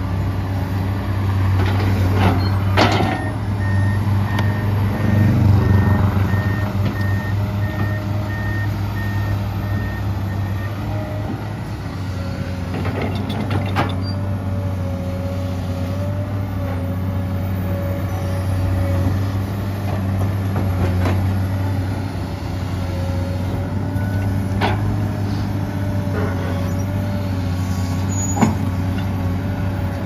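Komatsu PC200-8M0 excavator's diesel engine running steadily under working load, with a wavering whine above it. An alarm beeps at an even pace for about eight seconds near the start, and a few sharp knocks and cracks come through now and then.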